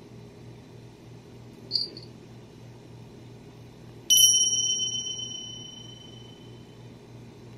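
A faint short tinkle, then about four seconds in a single bright metallic bell ding that rings on and fades away over about two seconds.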